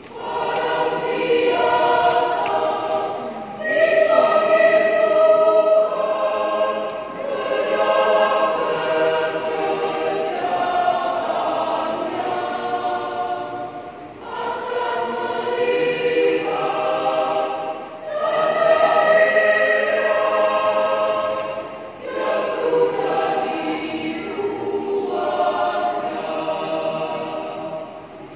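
A church choir singing a hymn in several parts, in phrases with short breaks between them.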